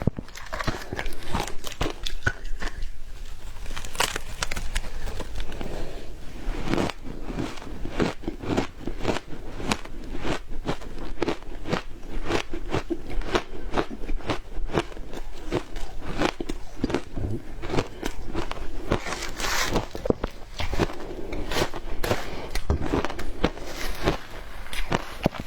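Frozen matcha ice being bitten and chewed: a continuous run of sharp crunches, roughly two a second.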